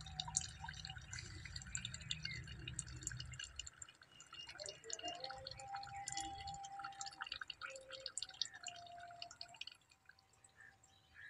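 Water dripping in quick, irregular drops, with a low hum for the first few seconds and a few short whistling tones near the middle.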